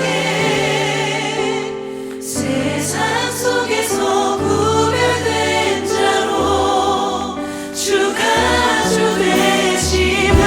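Church choir singing a Korean worship song, the voices held and wavering over sustained low accompaniment, with a brief breath-like dip between phrases about two seconds in.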